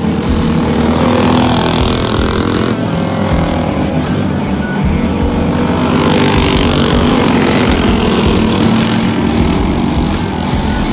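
Several racing karts' small engines running at speed around a dirt oval, growing louder and softer as they come around past the camera.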